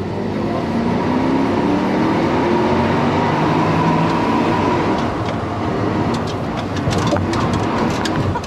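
Porsche Cayenne engine heard from inside the cabin, revving up under hard acceleration: its pitch climbs for about four seconds, drops at a gear change, then climbs again, over road and tyre noise.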